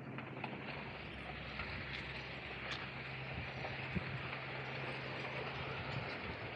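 Steady outdoor background noise with a low, even hum that stops about six seconds in, and a few faint ticks.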